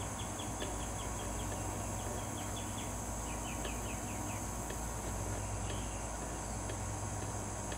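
Steady background hum with faint, high-pitched chirps in quick short runs during the first four seconds or so.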